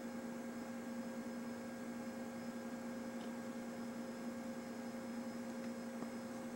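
Steady electrical hum with a fainter higher tone above it, over an even hiss.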